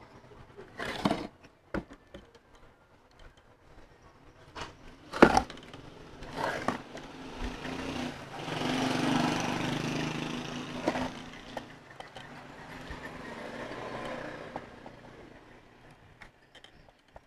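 Sharp knocks and clunks of a cast-iron electric motor housing being shifted and turned over on a wooden box while its stator is rewound with copper magnet wire, the loudest knock about five seconds in. In the middle, passing street traffic swells up with a low engine hum and fades.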